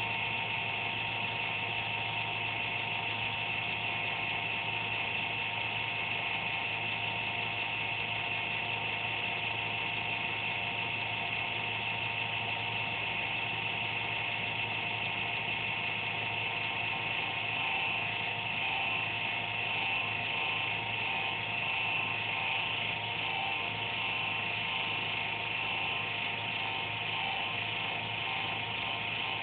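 Desktop computer giving off an uneven electrical buzz with a steady whine in it, wavering a little past the middle; the owner suspects the fan.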